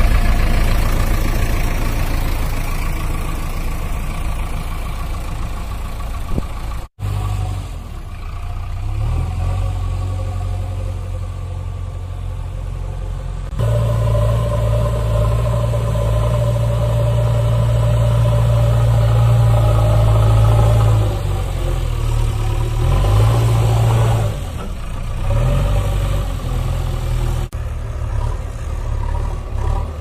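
Loud, steady engine sound with a low running drone and mid-pitched tones, changing abruptly in character a few times: about 7 seconds in, about 13 seconds in and near the end.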